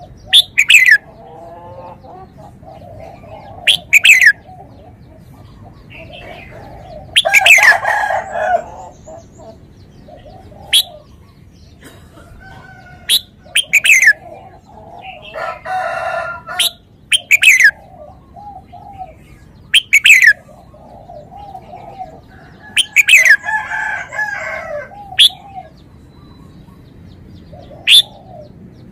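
Red-whiskered bulbul singing: loud, sharp whistled notes that slide steeply down in pitch, repeated every two to three seconds, with softer, lower warbling between them.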